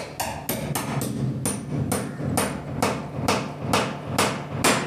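Hammer tapping a screw home through the lower hole of a steel aldrop (door latch) keeper, after the hole was drilled short so the last half inch is driven in. A steady run of light metallic strikes, about three a second, each with a brief ring.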